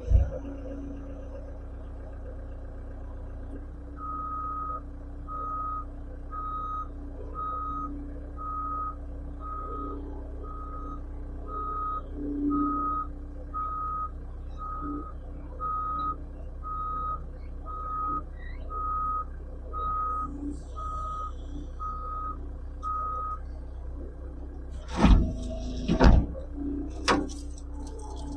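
Skid steer engine running steadily while its backup alarm beeps about once a second, around twenty times. Near the end come two loud knocks and a smaller third.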